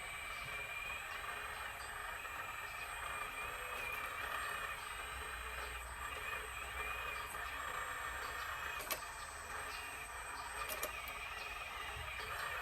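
A 1/12-scale RC excavator's electric motors running with a steady whine, with a sharp click about nine seconds in and two more near eleven seconds.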